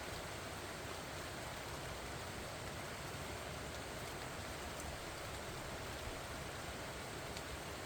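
Steady rain falling on pumpkin vines and their broad leaves: an even hiss with a few faint ticks of single drops.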